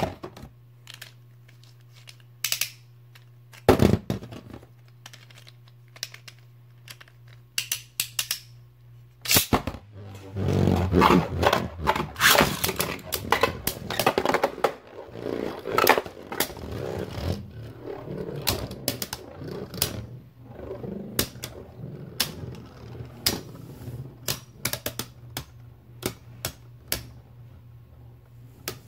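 Plastic Beyblade Burst Rise spinning tops, Dusk Balkesh and Right Artemis, clacking against each other and the plastic stadium wall as they battle. The hits come as scattered sharp clicks, thickening to a rapid clatter of collisions and scraping about ten seconds in.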